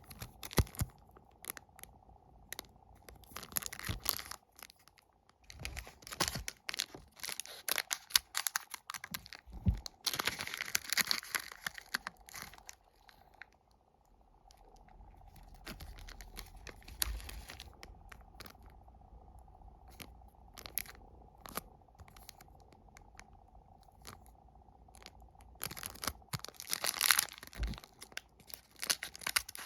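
Plastic wrappers of wafer packs being torn open and crinkled by hand, in several bursts with small clicks and taps between them.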